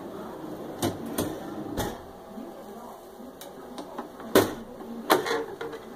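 A wooden glide-out pantry shelf pulled out on its slides, with a few clicks and a rumble, then a plastic flip-down medicine cabinet under it unlatched and swung down, with two sharp knocks about four and five seconds in, the loudest.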